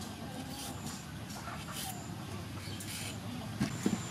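Hand vegetable peeler scraping strips of skin off a cucumber in short strokes, with a few sharp knocks near the end.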